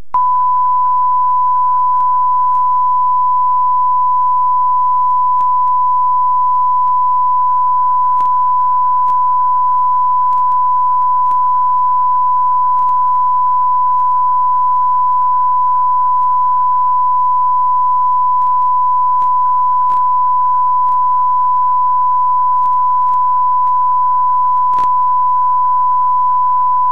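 A loud, steady electronic test tone: one pure pitch held without a break, over faint tape hiss and scattered small clicks.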